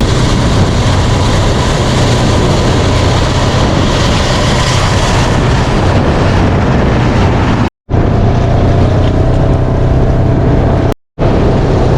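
Heavy farm machinery engine running steadily at a constant load. The sound cuts out abruptly twice, briefly, about 8 and 11 seconds in.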